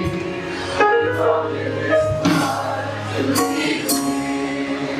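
Gospel song sung by voices over instrumental accompaniment, slow sustained sung lines with light percussive strokes.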